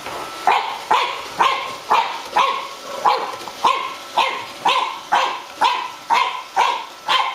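French bulldog puppy barking over and over at a Roomba robot vacuum, a steady run of sharp barks at about two a second.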